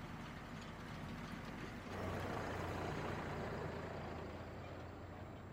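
Ursus C-392 tractor's diesel engine running steadily under load while it pulls a Strumyk 2.4 disc harrow through stubble. About two seconds in it grows louder and closer, with the noise of the harrow discs working the ground mixed into the engine.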